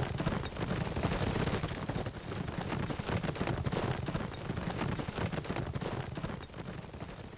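Heavy, rapid gunfire: many shots and machine-gun bursts running together without a break, easing a little and then dropping away near the end.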